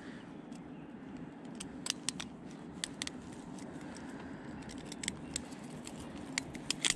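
Metal fishing pliers clicking and a crankbait's treble hooks clinking while the lure is worked out of a fish's mouth: scattered sharp metallic clicks over a low steady hum.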